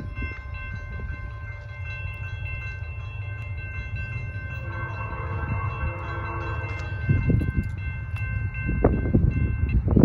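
Grade-crossing warning bell ringing steadily over the low rumble of an approaching Norfolk Southern freight train; the bell stops just before the end. About halfway through, the lead locomotive sounds one long horn blast lasting a couple of seconds, and the rumble swells louder near the end.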